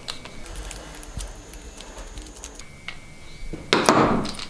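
Small clicks and light metallic rattling of a brass-and-plastic shower mixing valve being handled and turned over, with a louder rattling clatter near the end.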